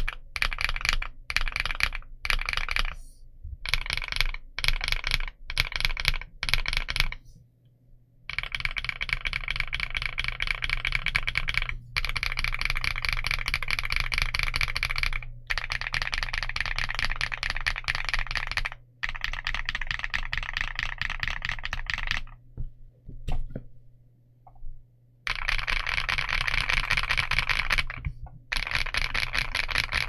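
Typing on a KiiBOOM Loop65 aluminium 65% mechanical keyboard with KiiBOOM Matcha Latte linear switches and dye-sub PBT Cherry-profile keycaps. It begins with about seven short rolls of keystrokes, roughly one a second, then goes into fast continuous typing with brief pauses and a few lone keystrokes a little past the two-thirds mark.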